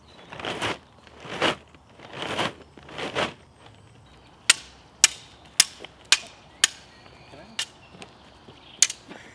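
A paperback book's pages riffled close to the microphone make four swelling whooshes, each cut off sharply. Then come about seven sharp, irregularly spaced clacks of sticks striking each other.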